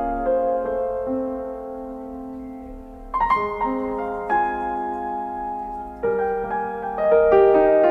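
Slow, soft piano music: sustained notes and chords, with new chords struck every second or two and left to ring.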